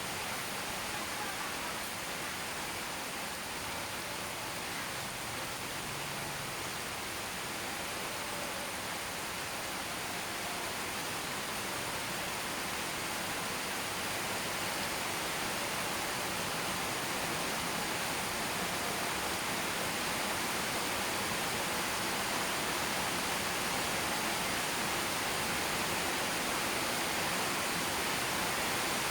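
Steady rain falling, an even hiss with no single drops standing out, growing slightly louder toward the end.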